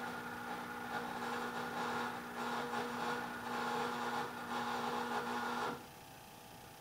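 A small electric motor or appliance runs with a steady hum and a wavering whirr, then cuts off abruptly near the end.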